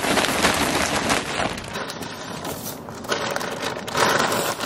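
Straw bedding rustling and crackling as bagged straw is pulled out by gloved hands and spread into a chicken coop.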